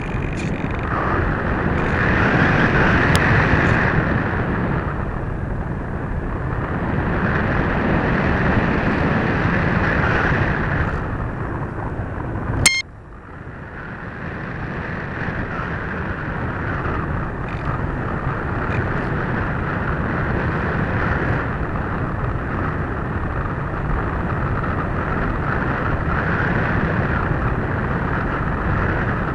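Wind rushing over the onboard camera microphone of a radio-controlled FPV model glider in flight, a steady rushing noise that swells and fades. Roughly halfway in, a sharp click is followed by a sudden drop in the noise, which then builds back up.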